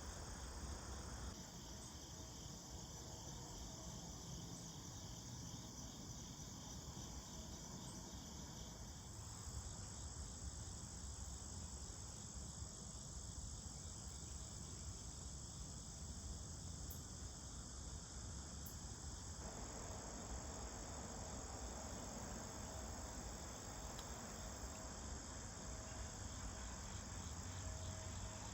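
Faint, steady evening chorus of crickets and other insects trilling without pause, over a low rumble.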